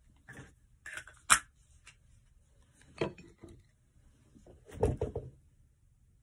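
Knocks and clatter from a boot studded with metal traction spikes being handled and shifted on a wooden workbench: a sharp click a little over a second in, another knock a couple of seconds later, and a short run of duller thuds near the end.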